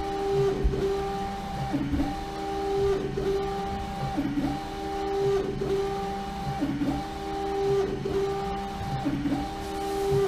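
LogoJet UVx60XL UV printer's print-head carriage sweeping back and forth during a full-wrap print. Its steady motor whine breaks and shifts pitch about every 1.2 seconds as the carriage reverses, about eight passes in all.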